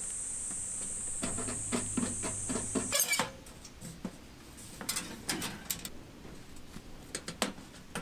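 A steady high insect drone, like crickets, cuts off abruptly about three seconds in. After it come scattered light metal clicks and taps as a curved metal handle bracket is handled and fitted onto a metal wood stove body.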